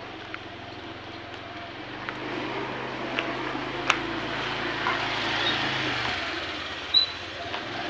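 A motor engine running steadily, its low hum shifting about six seconds in, with a few sharp clicks, the loudest about seven seconds in.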